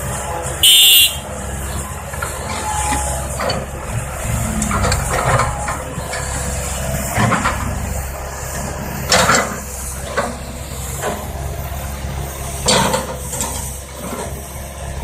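Heavy diesel engines of an excavator loading a dump truck running steadily. About a second in comes a brief, loud, high-pitched hiss, and a few short clunks follow later.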